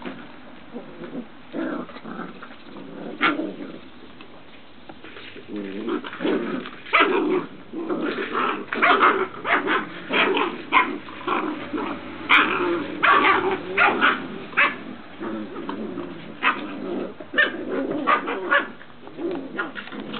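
Several puppies barking and growling as they play-fight: a few scattered yaps at first, then from about six seconds in a dense run of short, sharp barks that thins out near the end.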